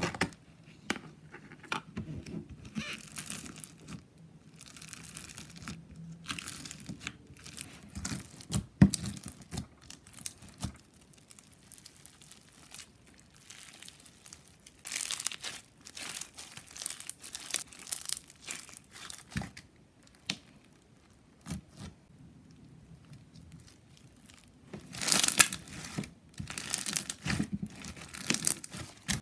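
Slushie slime, a clear glue slime packed with small beads, being squished, stretched and kneaded by hand. It gives an irregular crackling and crinkling with quieter stretches between, and louder bursts a few seconds before the end.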